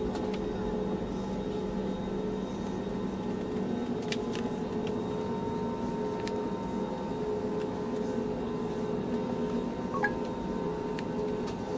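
Airplane engines heard from inside the passenger cabin: a steady hum of several held tones over a rush of noise, with a few faint ticks.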